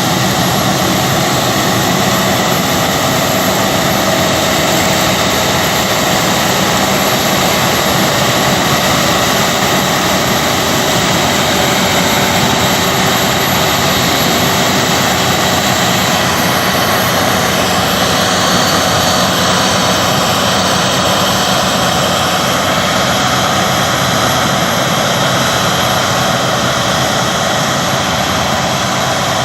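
Claas Lexion combine harvester running at work, a loud, steady mechanical drone with a whine that holds unchanged throughout.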